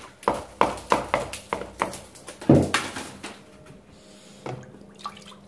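A stiff brush scrubbing a plastered wall with a primer-and-water mix, washing off old whitewash, in quick rough strokes about three a second. The loudest stroke comes about two and a half seconds in, and the strokes stop soon after.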